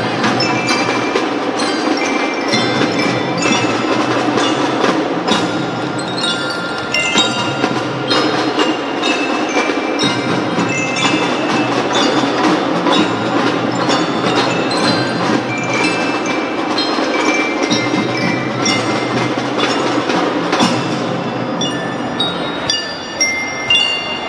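Drum band playing: a bright melody of quick bell-like mallet notes over drums and the rest of the band, broken into separate punchy hits near the end.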